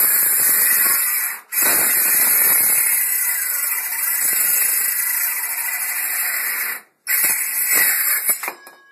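Handheld circular saw cutting through a wooden board, running in three long stretches broken by two brief stops, about a second and a half in and about seven seconds in, then stopping near the end.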